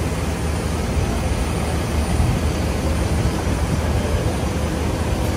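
Heavy diesel truck engine idling: a steady low rumble.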